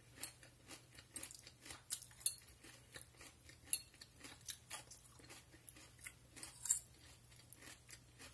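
A person chewing a mouthful of crisp raw celery salad, with faint, irregular crunching.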